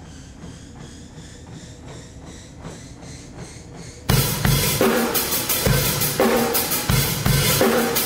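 Faint, regular footfalls on a running treadmill belt, about two to three a second. About halfway through, loud drum-heavy music with kick and snare cuts in suddenly and drowns them out.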